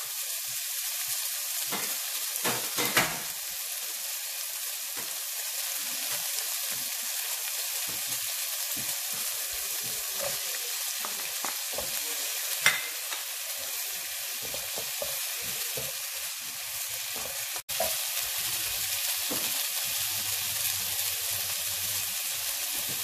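Strips of carrot, celery, pepper and zucchini sizzling in butter in a frying pan, stirred with a wooden spatula. A couple of sharp clicks, about 3 seconds in and again near the middle, come from the spatula knocking against the pan.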